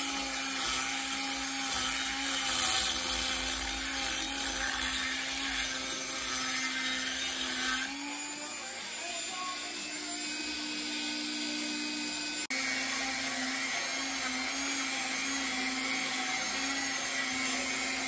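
Dremel rotary tool running with a steady high whine as its bit grinds grooves out of the cast-iron seal bore of a Bell & Gossett circulating pump bracket. About eight seconds in, the whine rises slightly and the grinding hiss falls away as the bit comes off the metal. It drops out for an instant a little past midway, then grinds again.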